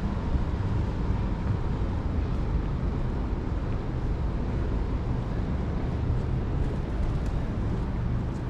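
A steady low rumble of vehicle noise, even throughout, with no distinct events.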